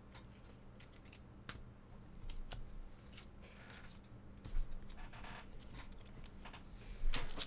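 Faint, scattered clicks and short rustles of trading cards being handled and slid past one another as a pack is flipped through, with a few louder brushes of card on card.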